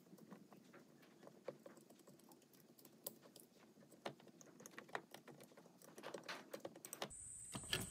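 Faint, irregular small clicks and rustles of hands handling the JB4 piggyback ECU module and tucking its wiring into place in the engine bay. A steady high hum and louder background come in abruptly near the end.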